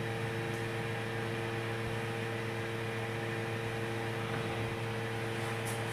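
Steady mechanical hum with a few steady low tones under a faint hiss.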